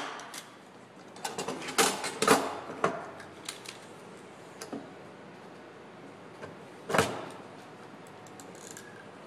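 Hand pop-rivet tool being worked: a quick run of metal clicks and rattles as a blind rivet is fitted into the tool, then one loud, sharp snap about seven seconds in as the handles are squeezed and the rivet's mandrel breaks off.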